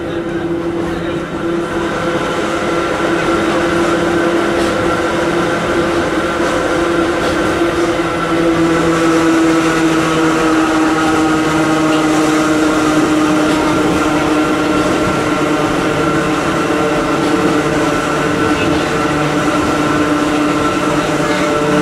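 Hakone Tozan Railway Moha 1-type electric car's nose-suspended (tsurikake) traction motors and gears whining steadily under way downhill, heard from inside the car over the rumble of the running gear. The sound grows a little louder over the first few seconds.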